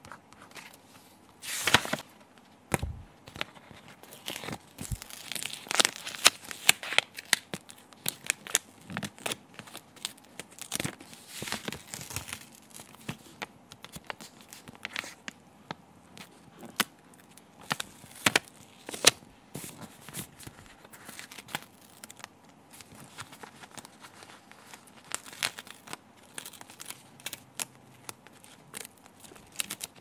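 Stickers being peeled off their glossy backing sheet, the sheet crinkling as it is handled: a run of short sharp rips and crackles, with one longer rip about two seconds in, busiest in the first half and sparser later.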